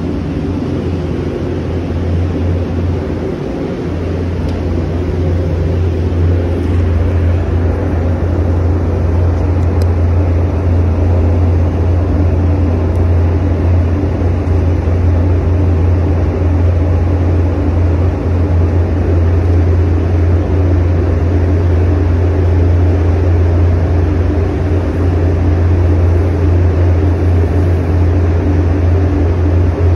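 Paint spray booth's ventilation fans running: a steady, loud drone with a strong low hum.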